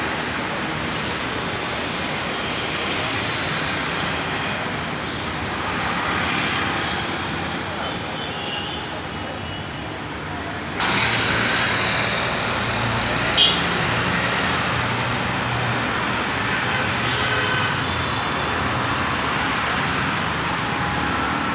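Steady hum of city street traffic, with distant vehicles passing. It gets louder abruptly about eleven seconds in, and there is one brief sharp sound about two seconds later.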